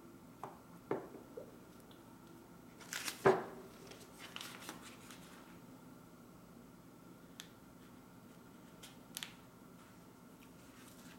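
Faint scattered clicks and taps of a Chinese painting brush and its water dish being handled as the brush is wetted, with a louder knock about three seconds in.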